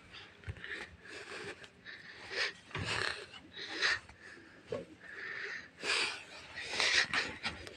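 Irregular breathy huffs and sniffs close to the microphone, a short puff every second or so, with a couple of soft knocks.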